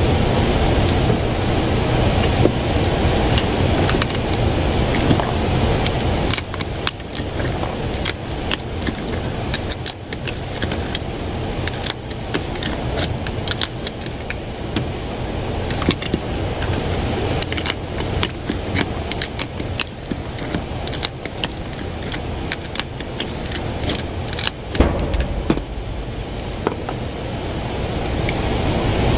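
Steady rumbling noise with many small scattered clicks and one sharper, louder knock about three-quarters of the way through.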